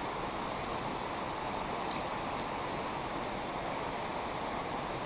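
River water flowing, a steady, even rush.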